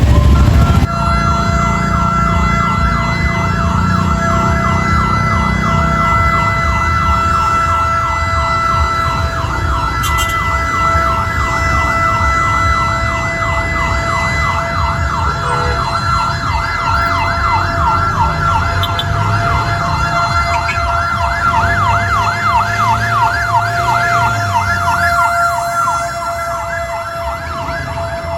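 Fire truck's electronic siren yelping, a fast repeating rising sweep, over a steady held tone and the truck's engine running. It grows a little fainter near the end.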